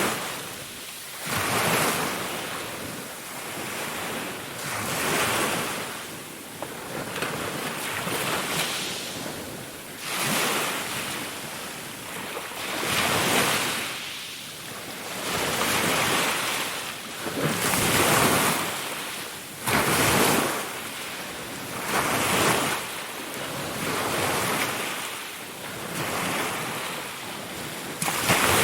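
Ocean waves breaking and washing onto the shore, each surge swelling and fading roughly every two seconds as a rushing hiss.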